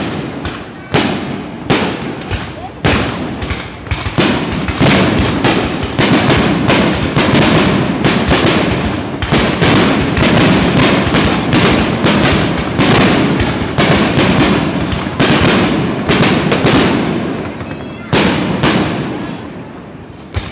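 Aerial fireworks display: a rapid, loud run of shell bursts, about two bangs a second, thinning out near the end.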